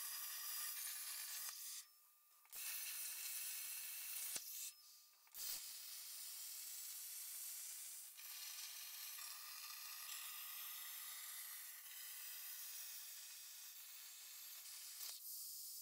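Plasma cutter arc hissing steadily as the CNC torch cuts through 1/4-inch steel plate. The hiss cuts out twice briefly within the first six seconds.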